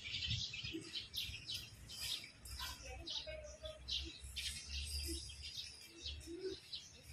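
Small birds chirping, many short high calls in quick succession, with a low rumble underneath.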